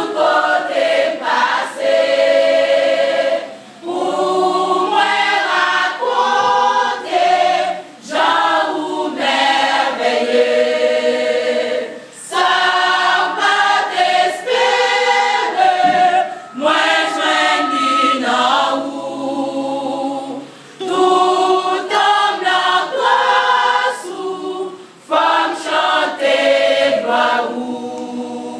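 A women's church choir singing a cappella, in phrases of about four seconds with short breaks between them.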